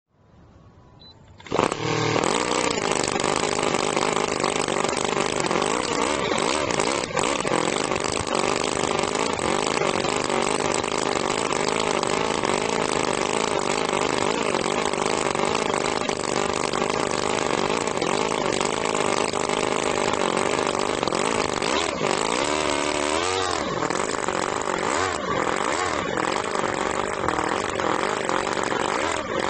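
Miniature four-stroke model engine on an RC car starts up suddenly about a second and a half in, then runs steadily at a fast, buzzing idle. Near the end the pitch rises and falls as it is revved.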